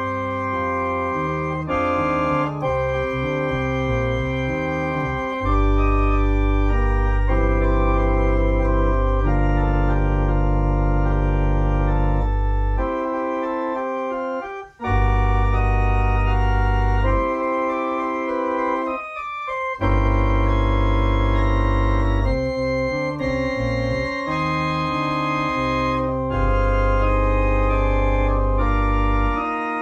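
Organ playing a slow hymn setting in held chords, with deep pedal bass notes that come and go under the harmony.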